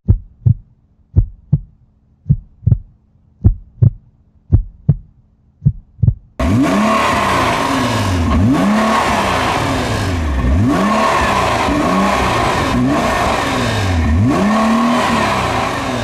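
A heartbeat sound effect: about a dozen thumps in pairs over a faint low hum. About six seconds in it cuts to a Nissan GT-R's engine running loudly, revving up and dropping back again and again, with tyre squeal.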